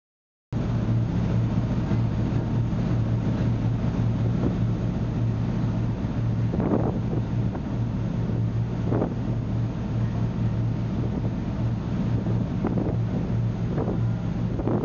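A ferry's engines droning steadily at cruising speed, a constant low hum, with wind buffeting the microphone and the rush of the wake behind.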